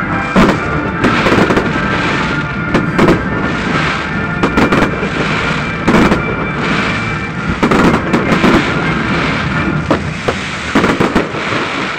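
Fireworks display: aerial shells bursting in a running series of sharp bangs, about one a second, over a continuous crackling haze.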